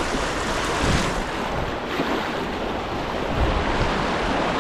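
Steady rush of fast-flowing stream water, with wind buffeting the microphone in irregular low rumbles.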